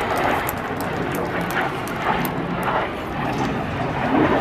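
Steady jet-engine noise from the Red Arrows' BAE Hawk display jets flying a smoke-trailing pass.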